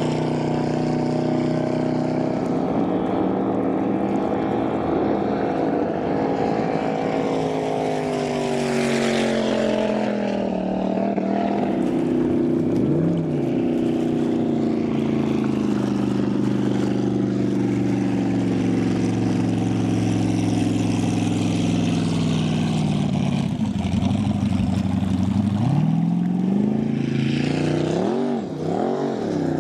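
Turbocharged speedboat engine running hard at speed, its pitch sagging slowly and swinging with throttle changes, with several quick revs up and down near the end. Hiss of hull and spray on the water underneath.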